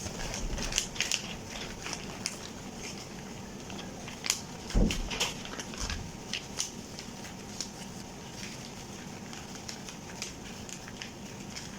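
A large poster being rolled and folded up by hand, its paper crinkling and rustling in irregular crackles, with a heavier thump about five seconds in.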